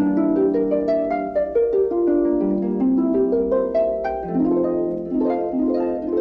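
Orchestral music led by plucked, harp-like notes in quick rising and falling runs.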